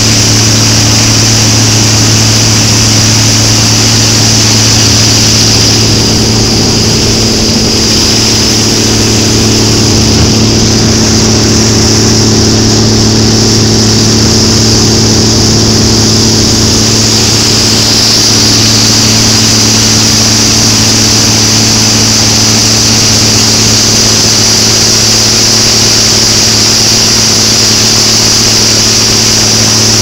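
Gleaner R-72 rotary combine running under harvest load, heard from the operator's deck: a loud, steady drone of the engine and threshing machinery with a hiss on top, unchanging throughout.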